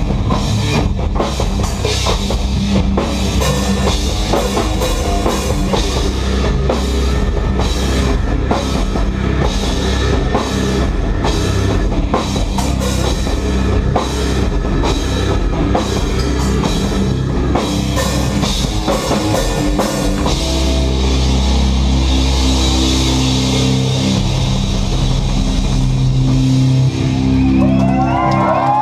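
Rock band playing live at full volume: fast, steady drumming with distorted guitars and bass, giving way about two-thirds through to a long sustained chord.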